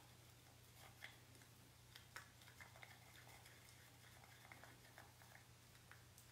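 Faint, irregular clicks and light scrapes of chalk paste being stirred in a small jar, over a steady low hum.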